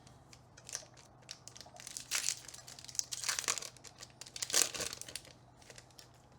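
Foil booster-pack wrapper crinkling and being torn open by hand, in a few short rustling bursts about two, three and four and a half seconds in, with light clicks of handling between them.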